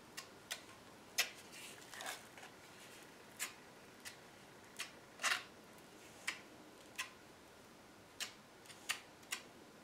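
Metal spackle knife scraping and clicking against a tile as tile adhesive is spread onto its back: irregular short clicks and scrapes, a dozen or so, one slightly longer scrape about five seconds in.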